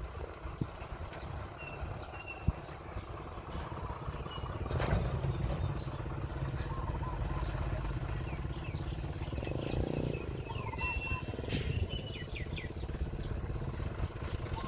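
Diesel engine of heavy earthmoving machinery running, its low rumble growing louder about five seconds in as it works, with a few sharp knocks early on. Small birds chirp over it.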